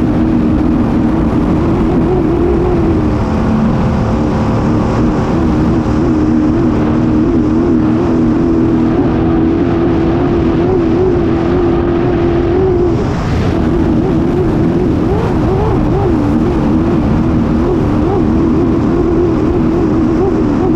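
Racing hydroplane's engine running at full speed, heard on board over rushing wind and spray. The engine note is steady, then wavers more unsteadily from about two-thirds of the way through after a brief dip.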